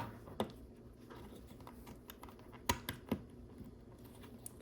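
LEGO plastic bricks being handled and pressed together: a handful of sharp, separate clicks, the loudest pair near the middle.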